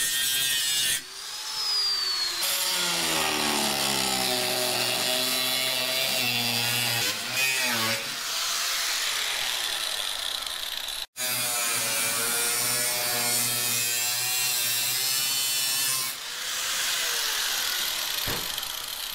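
Electric angle grinder working sheet-steel firewall edges, its motor whine sinking in pitch as the disc is pressed into the metal and recovering, with a few short breaks.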